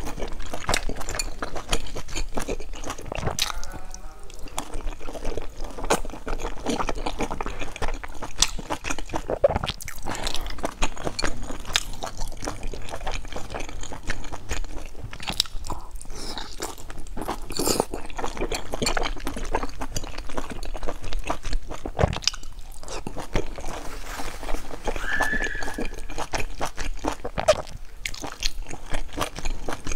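A person eating large dumplings: a continuous run of wet chewing, biting and lip smacks, many small clicks close together.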